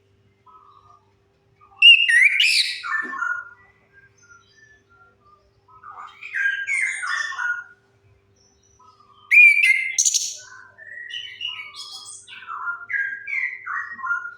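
Chestnut-capped thrush (anis kembang) singing, used as a lure song for a bird that has stopped singing: four phrases of quick, falling whistled notes with short pauses between them, the loudest one about two seconds in and another about nine seconds in.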